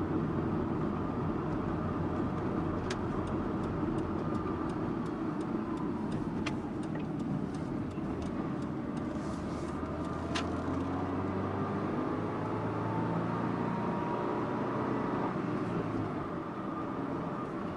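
Driving noise of a Subaru Impreza Sports Wagon (GG2) under way: steady road and engine noise, the engine note rising in the second half. A few sharp clicks sound now and then.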